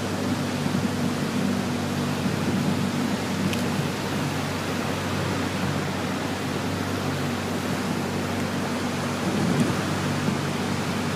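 Small boat's engine running steadily as the boat moves through flood water, under an even rushing noise of water and air.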